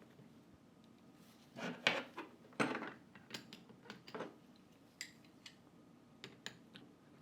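Metal parts of a Huck BV4500 tool's nose assembly clinking and scraping by hand as the collet is threaded onto the ball screw. A cluster of scrapes and knocks comes about two seconds in, then scattered light clicks.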